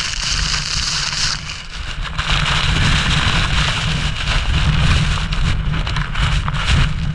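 Rushing water in a canyon: a steady loud hiss over a low rumble, shifting in tone about a second and a half in.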